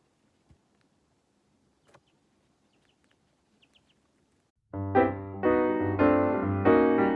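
Near silence with a few faint clicks and brief faint high chirps, then piano background music starts abruptly about two-thirds of the way in.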